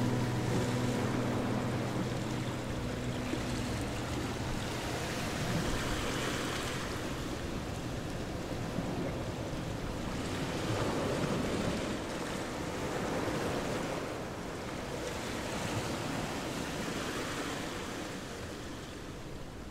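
Even rushing noise, like wind or surf, that swells and eases every few seconds; the tail of background music fades out in the first few seconds.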